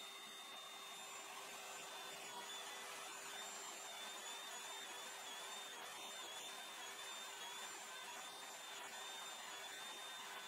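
Trim router spindle of a homemade CNC machine running steadily while its bit cuts into an MDF blank, heard faintly as a steady motor noise with a high whine that wavers slightly in pitch.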